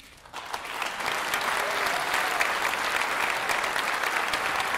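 Theatre audience applauding, swelling in during the first second and then holding steady.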